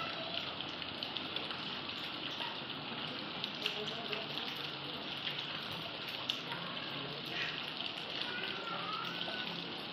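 Rainwater runoff pouring off a rock ledge and splashing onto stones and puddles below, a steady splashing hiss.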